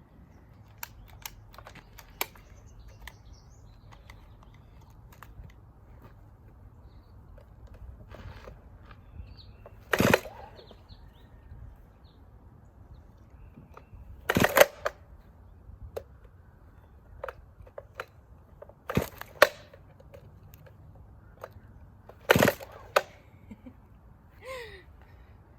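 Chainsaw's recoil starter cord yanked four times, a few seconds apart, each pull a short harsh rasp of the cold engine cranking over without catching.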